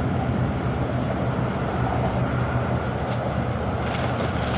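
Steady low rumbling hum, with a brief hiss about three seconds in.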